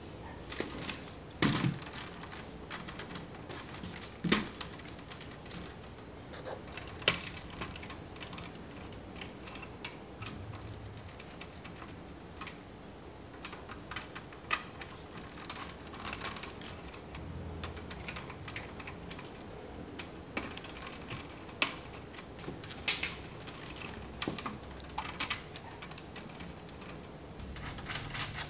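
LEGO Technic pieces and a 3D-printed plastic part being handled and pressed into place: irregular small plastic clicks and taps, with a few sharper, louder snaps.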